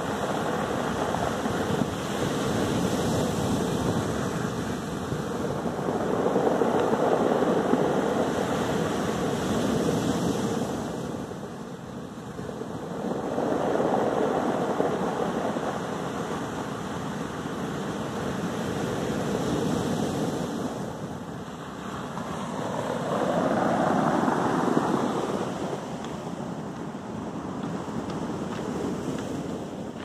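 Sea surf breaking and washing up a beach of rounded stones, swelling into a loud surge every several seconds and easing off between them.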